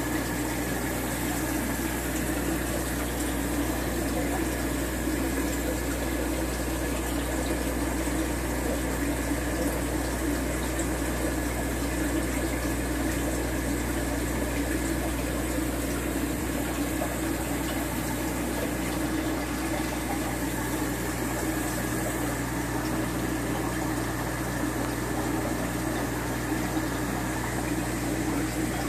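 Aquarium filter pump running steadily: a constant low hum under the sound of flowing water.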